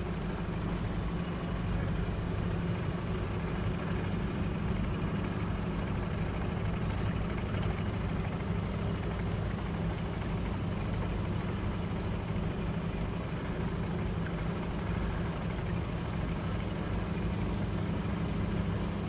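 Steady low mechanical hum with a few constant low tones, unchanging throughout, over a faint even wash of noise.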